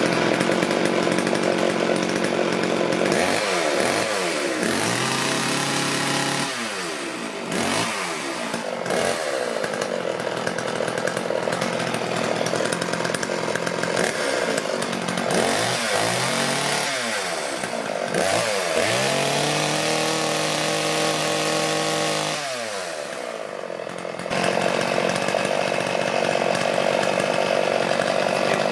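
Sachs-Dolmar 105 two-stroke chainsaw running just after being pull-started on its first run after restoration. It is revved up and down again and again, dropping back toward idle between blips, then held steady at a higher speed for the last few seconds.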